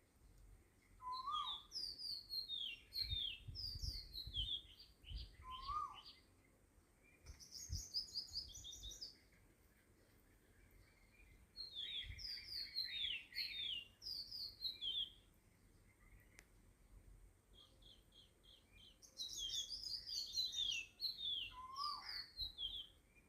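Small birds chirping: phrases of quick, high, falling chirps with pauses between them, and a short rising call heard about a second in, about six seconds in, and near the end.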